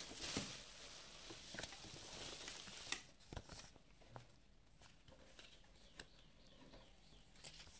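Bubble wrap and plastic packaging crinkling and rustling as it is handled, denser for about the first three seconds. After that come fainter, scattered ticks and rustles of a paper card and leaflet being handled.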